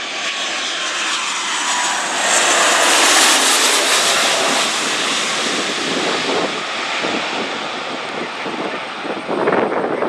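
Airliner passing close by, its engine noise building to a peak about three seconds in and then slowly fading. Wind buffets the microphone in gusts near the end.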